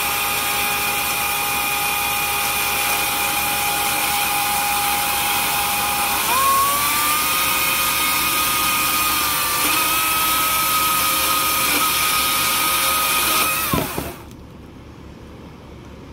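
EGO 56-volt battery chainsaw running with a steady electric whine as it cuts through a wooden 4x4 post. Its pitch steps up about six seconds in, then the motor winds down and stops about fourteen seconds in.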